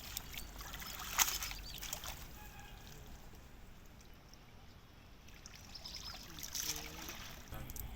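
Water trickling and splashing, with two louder splashes, one about a second in and another late on.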